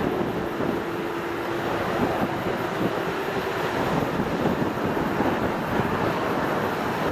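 Airliner engines running steadily as a dense rushing roar during a takeoff, with a faint steady hum over the first couple of seconds that then fades.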